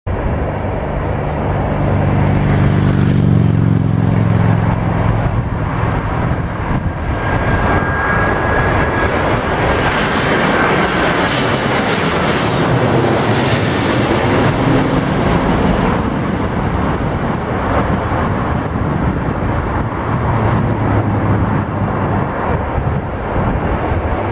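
Airbus A330-200 jet engines on final approach, passing low overhead: a steady, loud roar with whining tones that slide down in pitch as it goes by.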